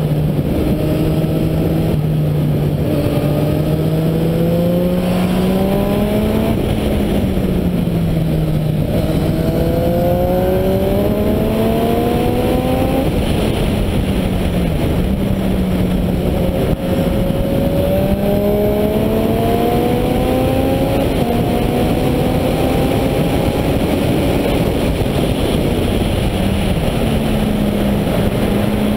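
Sport motorcycle engine accelerating hard through the gears, its pitch climbing and then dropping at each shift several times, over heavy wind rush from riding at speed.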